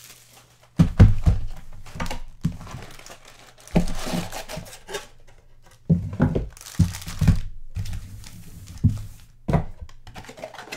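Sports trading card packaging being opened by hand: wrappers crinkling and tearing, with irregular thunks of the box and packs handled on a table.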